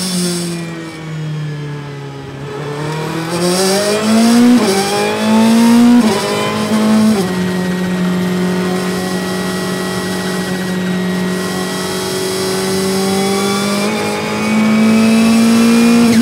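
Ferrari 488 GT Modificata's twin-turbo V8, heard from inside the cockpit, accelerating out of a slow corner in first gear. The note climbs, then drops sharply at three quick upshifts to fourth gear between about four and seven seconds in. It then holds fourth at a steadier, slowly rising note and gets louder near the end as the car pulls harder down the straight.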